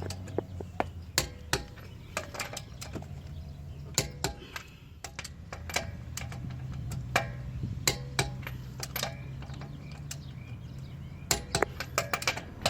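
Click-type torque wrench ratcheting on the wheel's lug nuts as they are tightened to torque: irregular sharp metallic clicks, some in quick clusters, over a low steady hum.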